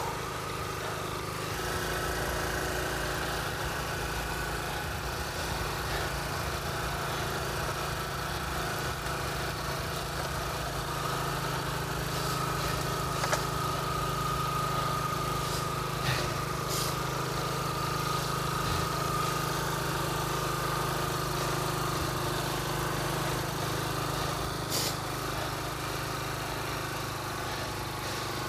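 A motor vehicle engine running at a steady low hum, with a faint wavering whine above it and a few short light clicks.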